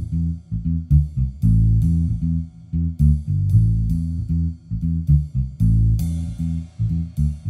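Background music: a plucked bass guitar line with guitar, in a steady rhythm.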